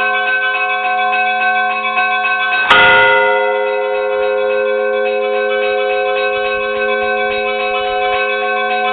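Church bells ringing: quick repeated strokes over a sustained ring. About three seconds in, a heavier bell is struck once and its ring slowly dies away.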